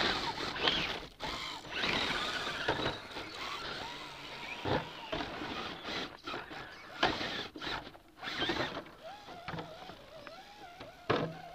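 Axial SCX10 radio-control rock crawler's electric motor and geared drivetrain whining as it crawls over rocks, with sharp clicks and scrapes of tyres and chassis on stone. Near the end the motor's whine wavers up and down in pitch with the throttle.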